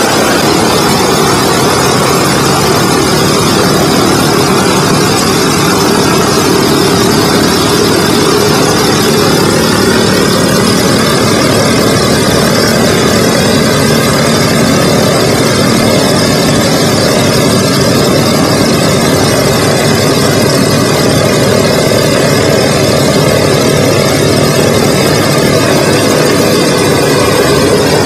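Boeing B-17 Flying Fortress's Wright R-1820 Cyclone nine-cylinder radial engines running steadily, warming up just after start-up.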